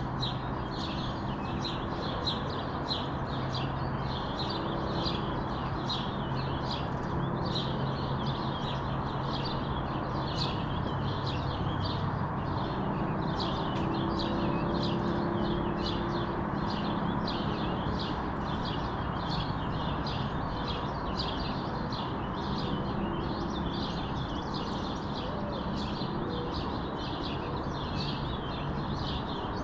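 Small birds chirping over and over, about one to two short chirps a second, over a steady low background rumble.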